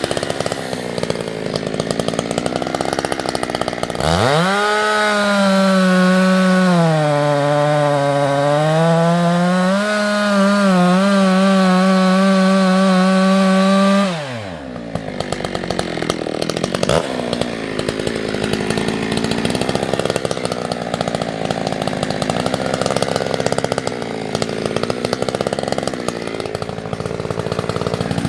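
Husqvarna 365 X-Torq two-stroke chainsaw idling, then revved to full throttle about four seconds in, its pitch sagging and recovering as the chain is loaded in the beech wood. It drops back to idle about fourteen seconds in and idles to the end.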